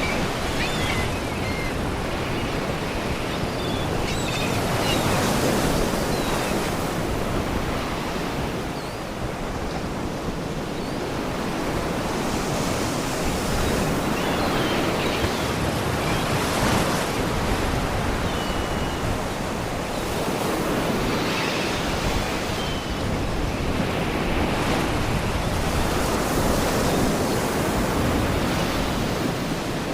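Sea waves washing against rocks, surging and falling back every few seconds, with faint seagull cries now and then above the surf.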